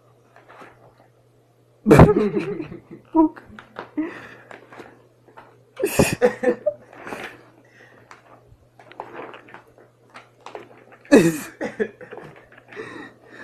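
People laughing in three loud bursts, about two, six and eleven seconds in, over a steady low hum.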